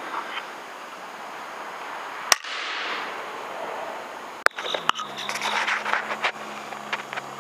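Air rifle shots at a rat: a sharp crack about two seconds in, another sharp crack about two seconds later, then a scatter of quick clicks and knocks over a low steady hum.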